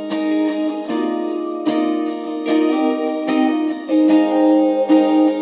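Acoustic guitar being strummed, an instrumental passage between sung lines of a song.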